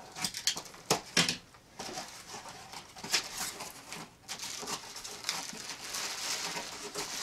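A cardboard shipping box being opened by hand: a few sharp knocks and scrapes as the flaps are pulled open, then steady rustling and crinkling of the bubble wrap packed inside.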